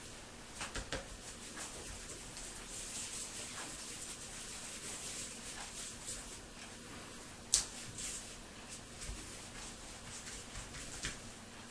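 Light rustling and scattered soft taps as a Sphynx kitten paws at a string-and-ball wand toy on a cloth-covered surface, with one sharper click about seven and a half seconds in.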